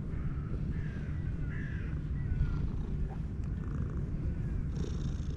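Cat purring steadily, a continuous low rumble, with a few faint short high calls over it.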